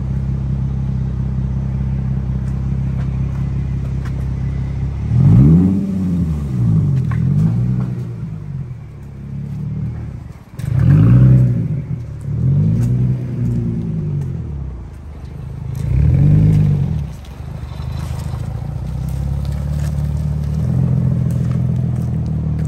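Nissan 350Z's 3.5-litre V6 running through a new Tomei aftermarket exhaust: it idles steadily, then is revved in several short throttle blips that rise and fall back to idle, and idles again near the end.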